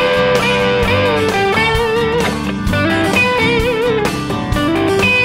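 Background music: an electric guitar plays a lead melody with bent, wavering notes over a steady beat.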